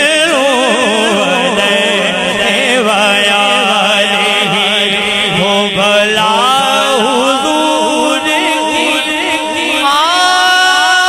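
A man's voice singing a naat through a microphone and loudspeakers, a drawn-out wordless melismatic line with sliding pitch, settling into a long held note near the end.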